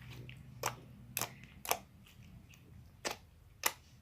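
Slime being squeezed and worked in the hands, giving off sharp popping clicks: three pops about half a second apart, then two more near the end.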